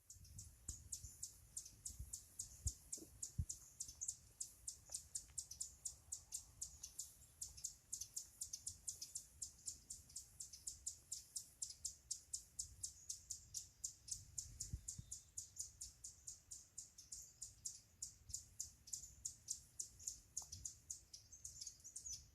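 Small songbirds chirping: a fast, even run of high chirps, about four a second, that goes on steadily, with a few soft low thumps beneath.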